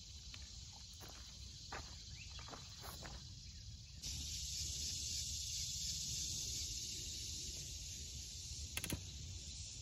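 Outdoor background of insects droning, with a few light clicks and knocks of work on the tractor in the first half. About four seconds in, the high insect hiss turns louder and steadier; there is one more click near the end.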